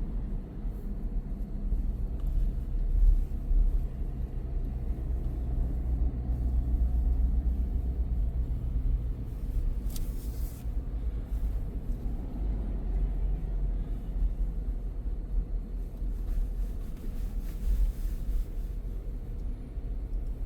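Car driving on the road, heard from inside the cabin: a steady low rumble of engine and tyres, with a brief hiss about ten seconds in.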